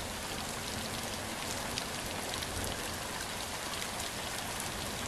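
Steady rainfall: an even hiss with a fine patter of drops.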